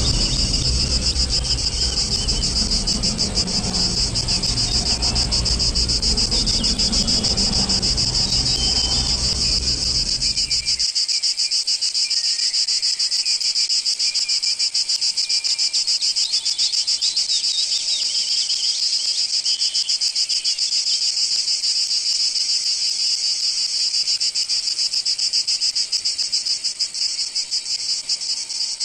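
Loud, steady chorus of insects: a dense high buzz made of rapid pulses. A low rumble runs underneath and cuts off suddenly about eleven seconds in.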